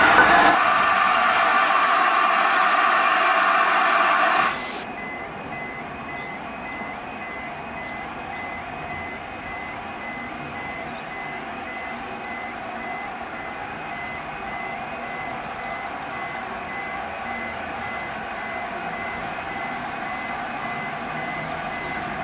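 A loud steady hiss by the steam locomotive's front end, cut off sharply about four and a half seconds in. Then a level crossing's audible warning sounds: a steady string of short, high beeps that signals an approaching train while the red lights flash and the barriers lower.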